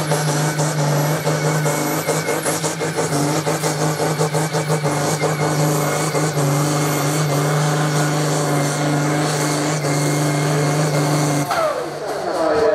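Pulling tractor's diesel engine running at steady high revs under full load as it drags a weight-transfer sled down the track. About a second before the end it is throttled off suddenly, and its pitch falls away.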